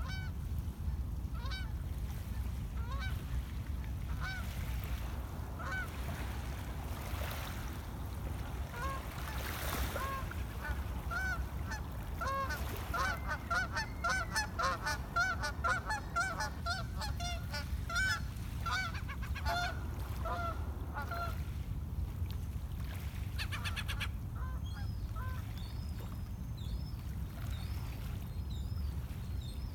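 A flock of geese honking: a few scattered honks at first, then many overlapping honks for several seconds in the middle before they die away. A steady low rumble runs underneath.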